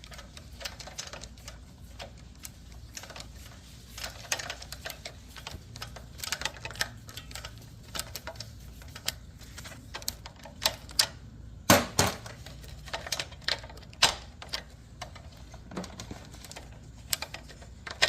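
Small hand tool clicking as it is twisted on a tight, hard-to-reach screw: many irregular sharp clicks, loudest in a cluster about twelve seconds in.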